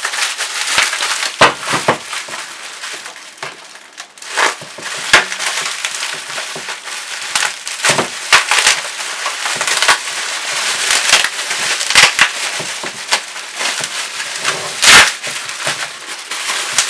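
Packaging being unwrapped and handled: a steady run of rustling and crackling with many irregular sharp clicks and snaps.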